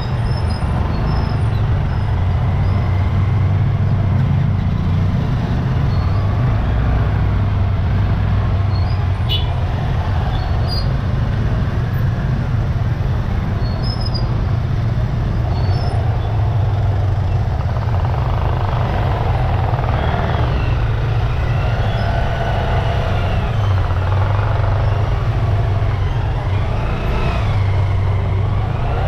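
Motorcycle and scooter traffic close around, their engines running in a steady low rumble. Voices of people in the street join in during the second half.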